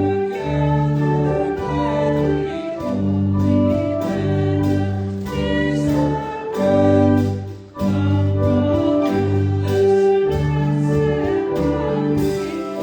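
Church organ playing a hymn tune in full sustained chords over a moving bass line, with a brief break between phrases about three-quarters of the way through.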